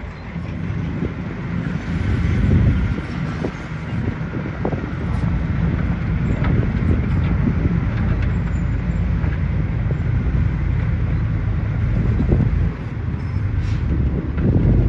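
Heavy earthmoving machinery at work: a diesel engine running steadily under load with a deep, low sound, and a few brief knocks scattered through.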